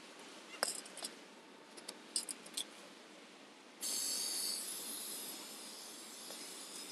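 Aerosol touch-up paint can spraying: a steady hiss that starts suddenly a little under four seconds in and runs about three seconds, easing slightly toward the end. A few light clicks and taps come before it.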